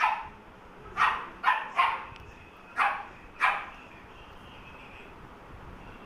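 Labrador retriever puppy barking: six short, high barks within about three and a half seconds, several coming in quick pairs.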